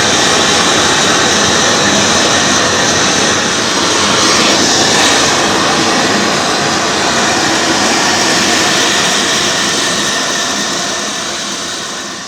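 Large gas torch burning with a steady, loud rush of flame while heating a copper boiler for silver soldering, fading out near the end.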